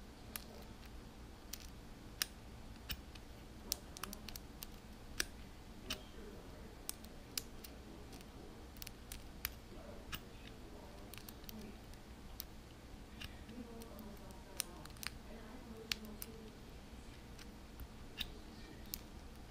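Number wheel of a Master Lock M175 combination padlock being turned notch by notch, giving sharp, irregular clicks about one or two a second as a shim in the lock feels for the code's groove.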